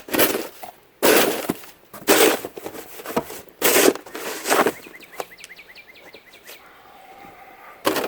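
Fresh snow crunching in a series of loud strokes about a second apart, then a fast run of light ticks a little after the middle.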